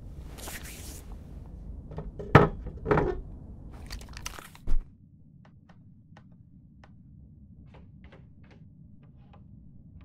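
A brief rustle and a few loud thumps, then small irregular clicks as controls on a keyboard controller and laptop are pressed.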